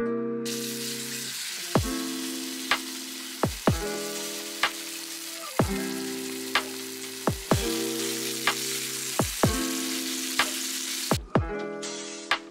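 New York strip steak searing in a hot cast iron skillet: a loud, steady sizzle that starts suddenly about half a second in and cuts off about a second before the end. Background music with plucked notes plays throughout.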